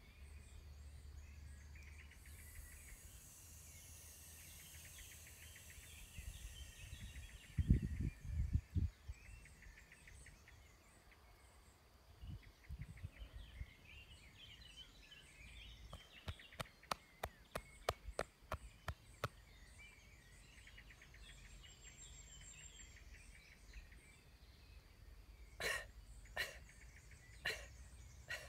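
Outdoor ambience with birds chirping. A brief low rumble about eight seconds in is the loudest moment. Around the middle comes a quick run of clicks, and near the end three sharp separate sounds.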